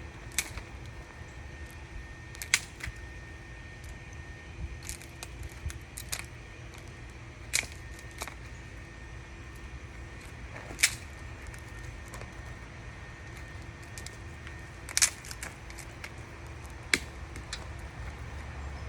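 Kindling fire burning in the firepot of a coal forge, crackling with irregular sharp pops over a steady low rumble.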